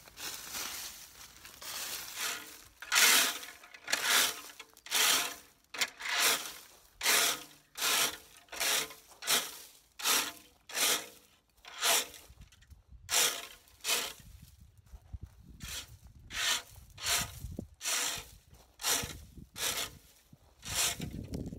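Plastic fan rake dragged over gravel and dry leaves in steady strokes, a little faster than one a second, each stroke a scrape of stones.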